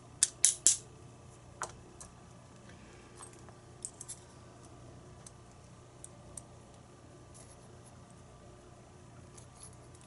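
Small metallic clicks and taps of a tool working the lock's pin chambers and loose pin parts during disassembly: three quick sharp clicks right at the start, one more a second later, then scattered faint ticks.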